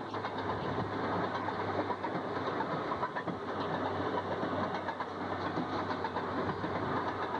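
Fairmont railroad motor car's two-stroke engine running steadily under way, with the wheels clattering over the rail joints, heard from aboard the car.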